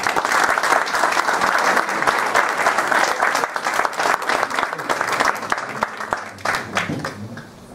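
Small seated audience applauding steadily, the clapping thinning and dying away near the end.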